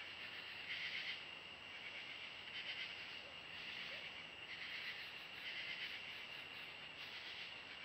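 Evening chorus of insects chirping steadily, swelling in pulses every second or two.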